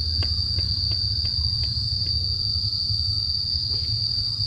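Insects chirring in one continuous, shrill, unbroken drone, over a low rumble, with a few faint clicks in the first two seconds.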